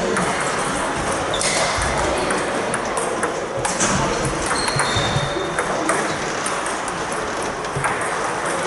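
Table tennis balls clicking off bats and tables in rallies, sharp irregular ticks from more than one table at once, over a steady background hubbub.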